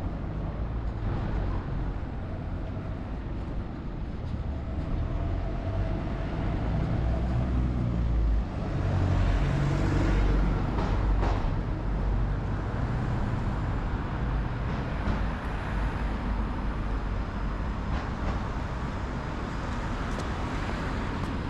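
City street traffic: a steady rumble of passing vehicles, with one vehicle going by louder and closer about nine to twelve seconds in.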